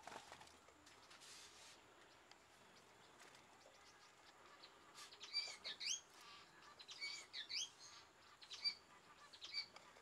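Gouldian finches giving short, high chirps in quick little clusters, beginning about halfway through and repeating every second or so over faint room hiss.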